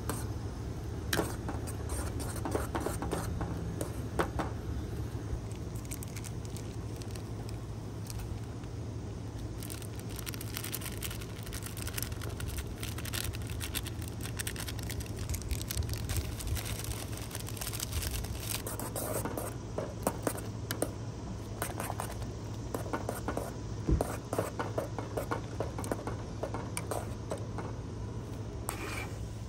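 Scattered clicks, knocks and rustles of objects being handled and moved, over a steady low hum.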